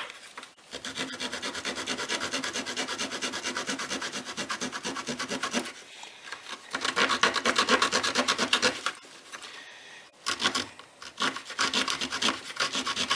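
Small folding saw blade of a Cabela's multi-tool cutting through a dry wooden stick: quick, even back-and-forth rasping strokes in three runs, with two short pauses, the first about six seconds in and the second about nine seconds in.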